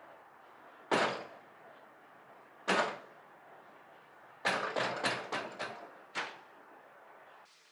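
Short, sharp knocks and handling noises as a cap is fitted and pressed onto the dome of a steam crown-shaping machine. There is one about a second in, another near three seconds, then a quick run of about five a second and a half later, and a last one soon after.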